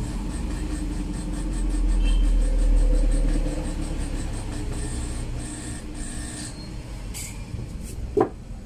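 Music playing through a speaker from one channel of a home stereo amplifier, the sound broken up and distorted, over a strong low hum. The distortion is the sign of the amplifier's faulty half channel, typically caused by abnormal bias voltage.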